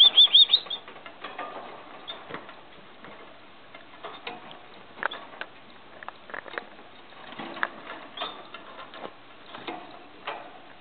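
Canary nestlings giving a quick run of high begging peeps, about half a dozen in well under a second. The peeps fall silent and are followed by scattered faint clicks and rustles from the nest.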